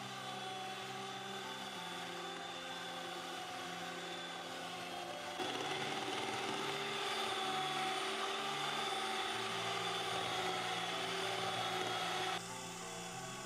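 Electric hand mixer running steadily with a high whine as its beaters cream butter and sugar and beat in eggs. It gets louder about five seconds in and drops back suddenly near the end.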